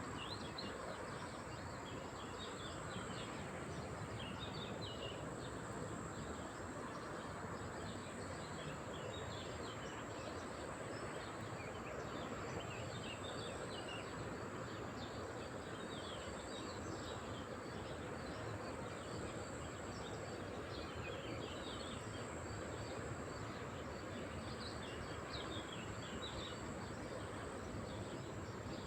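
Lakeside ambience: a steady wash of outdoor noise with small birds chirping in quick, scattered notes, and a steady high-pitched insect drone.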